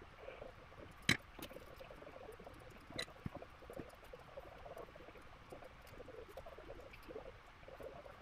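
Faint, irregular small clicks and scratches of hand soldering work: tweezers and a soldering iron tip tapping and scraping on a bare circuit board. There is a sharper click about a second in and another about three seconds in.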